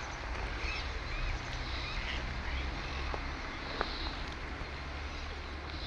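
Birds chirping in short, scattered calls over a steady low rumble, with one sharp click a little under four seconds in.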